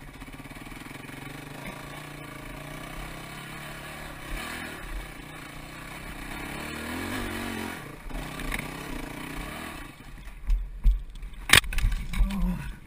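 Dirt bike engine running and revving along a trail. About ten seconds in the engine drops away and the bike goes down into the brush with a series of thumps and one sharp crack.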